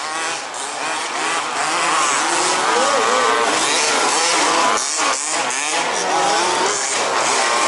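Several 1/5-scale RC buggies' small two-stroke engines revving and easing off as the cars race past, their pitches rising and falling over one another and growing louder in the first couple of seconds.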